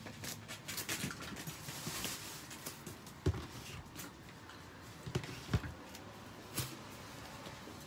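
Light clicking and rustling, with soft thuds a little over three seconds in, twice around five and a half seconds and once more near six and a half: footsteps close by on the floor and a chihuahua moving about in its wire crate.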